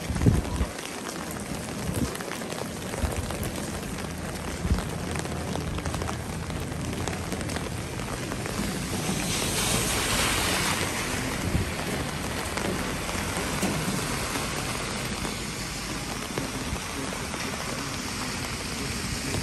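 Heavy rain falling steadily, pattering on an umbrella overhead and splashing on wet pavement. About ten seconds in, a car swishes past on the wet road, and there are a few dull thumps in the first five seconds.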